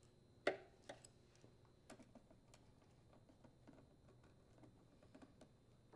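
Faint scattered clicks and taps of small parts being handled while the ignition wire is connected to the ignition module of a Husqvarna leaf blower and the grounding-wire screw is driven in. One sharper tap comes about half a second in.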